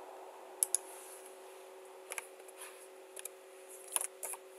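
Scattered sharp clicks of a computer mouse and keyboard, several in quick pairs, over a faint steady hum.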